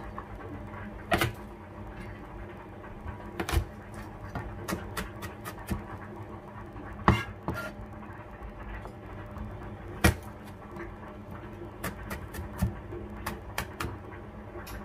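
Kitchen knife chopping garlic on a cutting board: irregular sharp knocks, four louder ones spread through, with lighter taps between.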